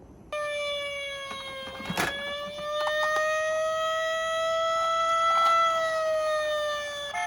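Electronic siren of a toy emergency vehicle sounding one slow wail that rises gradually, then falls near the end. A few short clicks and knocks sound along with it.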